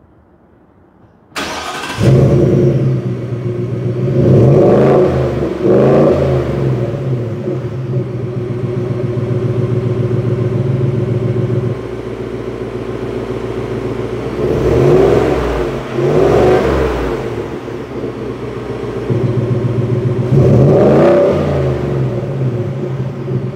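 Roush F-150's 5.0 L V8 starting through its Roush active exhaust, then idling with about five short revs. The exhaust note steps quieter about halfway through and louder again near the end as the active exhaust switches between its quiet and loud modes.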